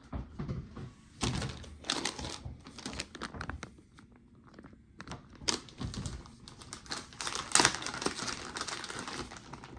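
Plastic packaging of a soft swimbait being handled and opened: irregular crinkling and tearing with scattered clicks and taps, quieter for a moment midway.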